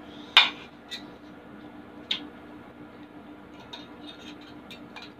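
Close-miked eating sounds: a sharp crunchy bite about half a second in, then a few smaller clicks and a run of faint mouth clicks while chewing, over a faint steady hum.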